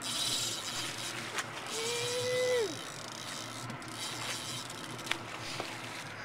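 Spinning reel's drag buzzing as a hooked fish pulls line off the bent rod. About two seconds in, a long held whoop that falls away at its end is the loudest sound.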